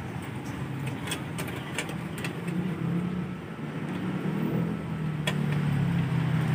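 Small metal clicks and scrapes of a screw and nut being fastened by hand at an oven toaster's ceramic heater terminal, reattaching the broken spring contact that left the heater without power. A low hum rises under them in the second half.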